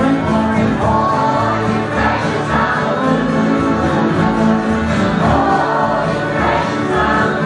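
Live folk ensemble playing together, with acoustic guitars, accordion, bowed cello and upright bass, and several voices singing in unison over a steady strummed rhythm.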